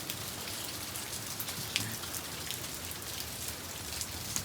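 Heavy rain pouring down steadily: a dense, even hiss of falling drops with scattered sharp drop ticks, one louder tick about two seconds in.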